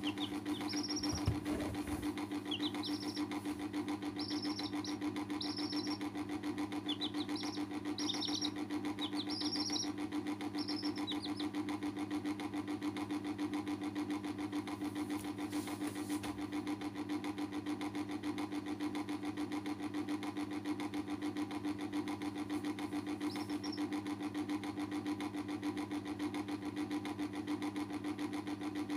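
A steady machine hum runs throughout, with domestic chicks peeping in short high cheeps: a string of them in the first ten seconds or so and one more about 23 seconds in.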